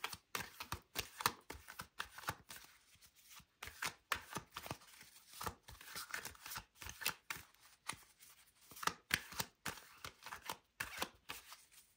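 A deck of tarot cards being shuffled by hand: a soft, irregular run of quick card flicks and snaps, thinning out briefly around three and eight seconds in.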